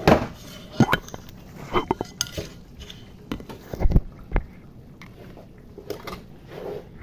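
Serving utensil knocking and scraping against pots and dishes while the cooked food is dished up: a string of irregular clinks and knocks, with a couple of dull thumps about four seconds in.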